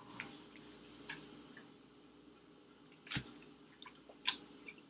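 Faint wet mouth sounds of slurping and chewing thick Korean black-bean-sauce instant noodles, with scattered small clicks and one sharper click about three seconds in.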